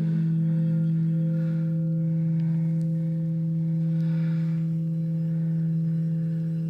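Ambient drone music: several low tones held steady, with no break or decay, under a faint shimmer higher up.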